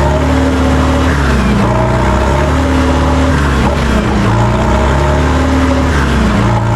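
Farm tractor diesel engines running loud and steady, as tractors drive in the field.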